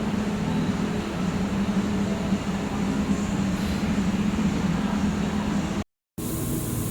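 Steady machinery drone with a constant low hum. It cuts out completely for a moment near the end.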